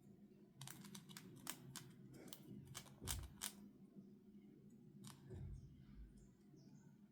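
Faint handling of small plastic toy pieces: a quick run of sharp clicks and taps in the first half, one more click later, and a couple of soft thumps as parts are set down.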